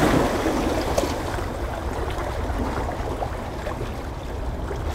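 Steady rushing water-and-wind noise with a low rumble.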